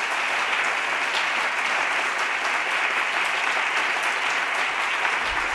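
Conference audience applauding steadily, sustained clapping at the end of a keynote talk.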